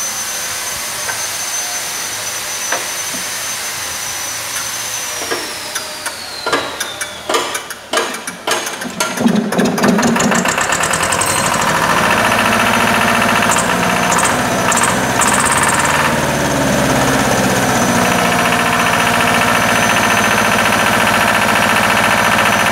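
Lister TS2 two-cylinder air-cooled diesel being cold-started by hand. A steady high whine falls away about five seconds in, followed by a few seconds of uneven knocks as it turns over and fires. About ten seconds in it catches and settles into a steady run.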